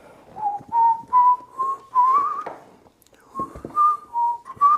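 A man whistling a slow tune of short held notes, with a few light knocks and clicks underneath.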